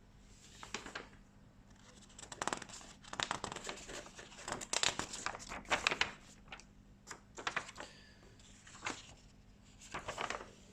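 Paper model-kit instruction sheets being handled and folded, rustling and crinkling in irregular bursts.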